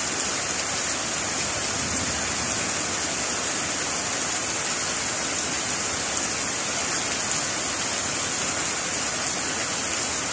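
Heavy rain falling steadily: a dense, even hiss with no let-up.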